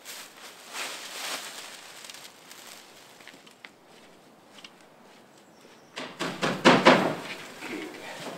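Bundles of dry thatching reed rustling and scraping as they are lifted and handled. About six seconds in comes a louder burst of rustling with several knocks.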